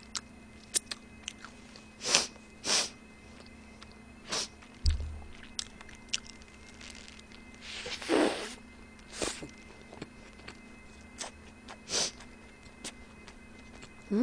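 Close-miked mouth sounds of a person biting and chewing a burger: scattered wet clicks and smacks, with one longer bite sound about eight seconds in.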